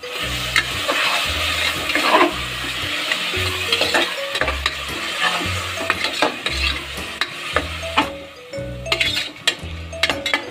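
Metal ladle stirring and scraping chopped tomatoes and vegetables frying in oil in an aluminium pressure cooker: sizzling with many quick clinks and scrapes against the pot, the sizzle thinning out near the end. Background music with a steady beat runs underneath.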